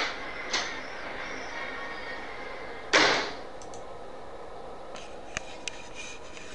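A panelled front door with glass panes clicking open, with a second click just after, then shutting about three seconds in, the loudest sound here. Two faint clicks come near the end.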